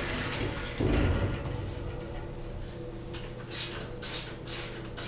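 A thump about a second in, then a trigger spray bottle squirting water onto a glass shower door, several short hissing squirts in quick succession over the last two seconds.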